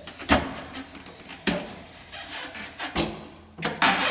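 Tire changer turning the wheel while the tire's top bead is dragged off over the demount arm: rubber rubbing and scraping against the arm, with three sharp clacks and a louder scrape near the end.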